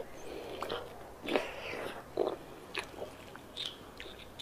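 Close-miked eating sounds: a person biting into and chewing braised beef bone marrow, a series of irregular short mouth clicks and smacks.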